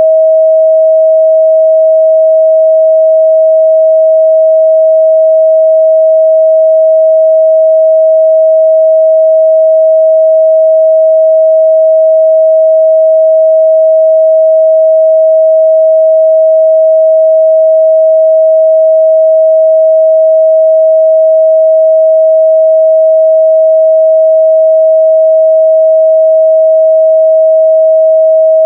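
A steady, loud 638 Hz sine-wave test tone, one pure pitch held without change.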